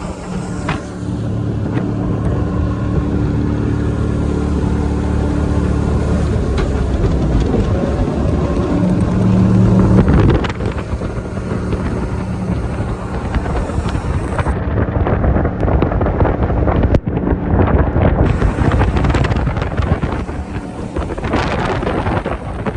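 Jet boat engine running hard under wind buffeting on the microphone and rushing water, its note swelling to its loudest about ten seconds in. For about three seconds a little after the middle the sound goes dull and muffled.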